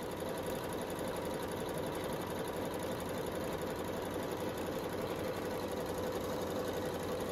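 Janome Horizon computerized sewing machine stitching through fabric, running at a steady speed with an even hum.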